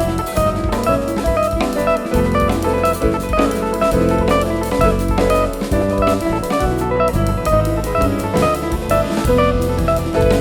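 Instrumental jazz band playing live: drum kit, double bass or electric bass, keyboards and guitar, with the drums keeping a steady beat under busy melodic lines.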